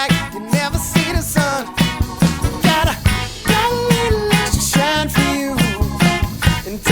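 Background music with a steady quick beat and a melody line over it.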